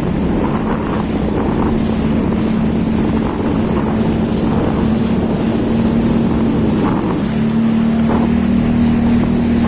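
Jet ski engine running steadily at speed, its tone stepping slightly higher about seven seconds in, with wind on the microphone.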